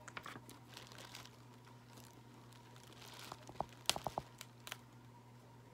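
Crab legs being broken open and picked apart by hand: scattered crackles and small clicks, with a quick cluster of sharp snaps about four seconds in.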